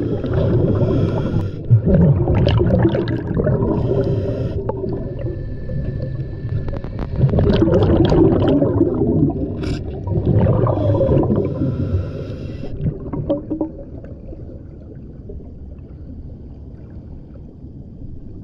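Scuba diver breathing through a regulator, heard underwater: a few short hissing inhalations and loud bubbling, rumbling exhalations. It grows quieter for the last few seconds.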